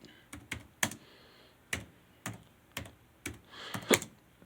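Typing on a computer keyboard: single key clicks at an uneven, unhurried pace, about two a second.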